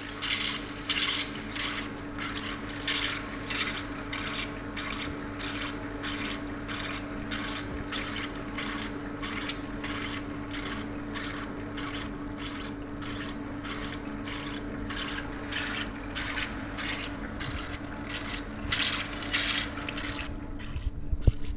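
EDM machine running: a steady electrical hum under a fluid-like hiss that swells and fades about twice a second, a little louder near the end.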